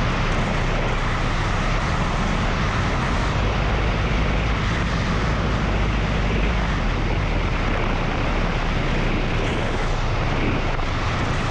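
Steady wind rush and engine and road noise of a motorcycle riding along at speed, picked up by a camera mounted on the bike, with heavy low buffeting from wind on the microphone.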